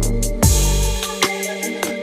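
Electronic music with a heavy beat: drums and deep bass notes that drop in pitch.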